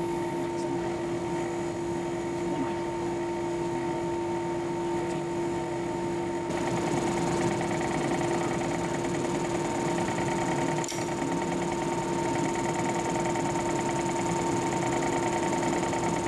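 Milling machine spindle motor running with a steady hum and whine. About six and a half seconds in it grows a little louder and takes on a fine, rapid rattle.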